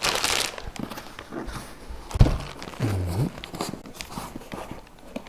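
Packaging rustling and parts being handled while unpacking an e-bike box, with scattered knocks, a sharp thump about two seconds in and a short low-pitched sound about three seconds in.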